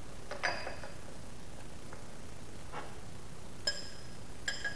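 Light metal-on-metal clinks as the steel parts of a bearing puller are fitted together on a crankshaft: four taps, the last two ringing briefly like a struck bell.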